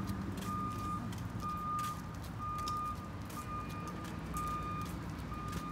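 A vehicle's reversing alarm beeping about once a second, a single steady tone repeated six times.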